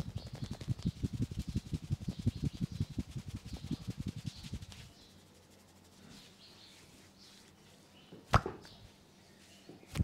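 Rapid rhythmic slapping and tapping of hands on a head during a vigorous head massage, about eight to ten dull strokes a second, stopping about five seconds in. Later comes a single sharp crack, the loudest sound here.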